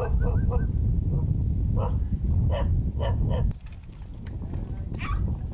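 Pungsan dog barking: a run of short, separate barks, four of them close together in the second and third seconds, over a steady low rumble that drops away about three and a half seconds in. One more bark comes near the end.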